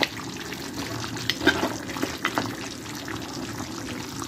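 Metal spoon stirring stewed pork ribs in their sauce, with several sharp clinks and scrapes of the spoon against the pan over a steady liquid simmer.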